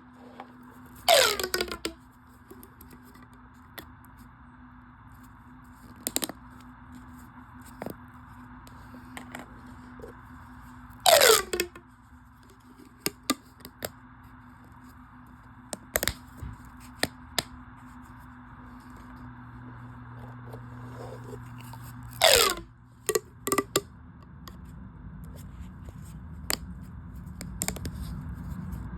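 Corrugated plastic sensory pop tubes being stretched and squeezed: three loud rasping pulls, each about a second long and falling in pitch, roughly ten seconds apart, with scattered sharp clicks and pops between them. A steady low hum runs underneath.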